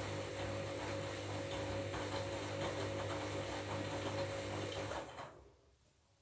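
Washing machine motor turning the drum during the wash: a steady hum with light clatter. It stops a little after five seconds in, as the drum pauses between turns.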